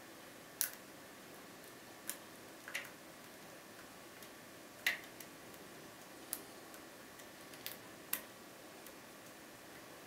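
Lock pick and tension wrench working the pins inside a GTV five-pin euro cylinder with anti-pick security pins: sharp metallic clicks, about eight at irregular intervals.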